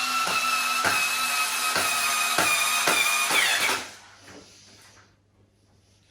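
Cordless electric screwdriver driving a screw, its motor whining at a steady pitch, then slowing with a falling whine and stopping about four seconds in. A few faint knocks of handling follow.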